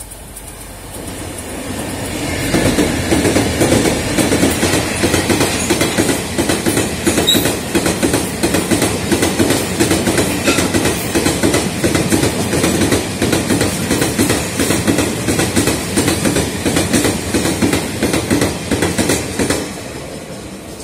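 A freight train passing through a station at speed, its wagon wheels clattering in a steady rhythm over the rail joints. The sound builds over the first few seconds and fades near the end as the train goes by.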